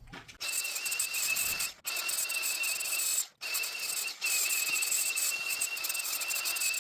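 Electric power tool sanding wood: a steady high whine over a gritty hiss. It drops out abruptly in three short gaps.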